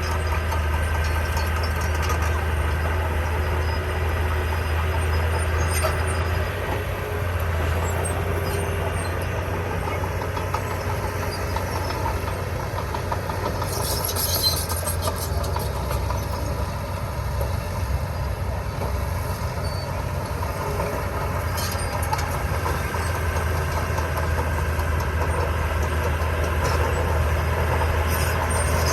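Diesel engine of heavy earthmoving equipment running steadily with a deep, even hum, with a brief hiss about halfway through.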